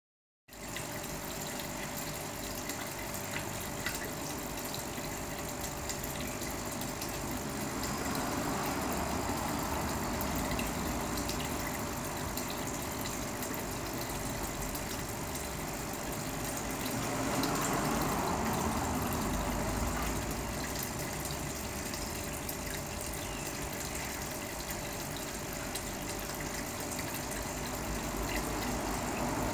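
Steady noise of water circulating in a fish tank with a pump running, swelling louder twice for a few seconds.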